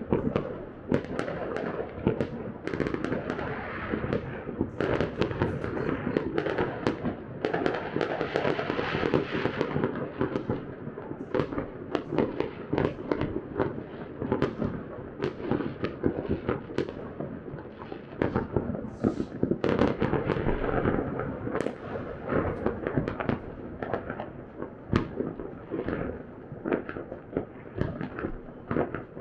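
Many fireworks and firecrackers going off across a city at once: a dense, unbroken barrage of bangs and crackling.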